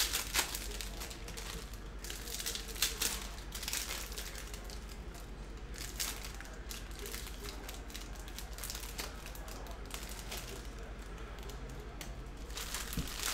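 Foil hockey card pack wrappers crinkling and trading cards being handled, in short, irregular rustles.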